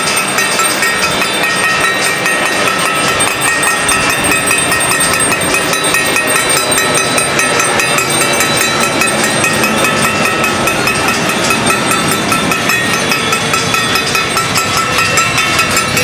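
Many people across neighbouring rooftops clapping and clanging metal, a dense, unbroken din of claps and clanks with ringing metallic tones held above it.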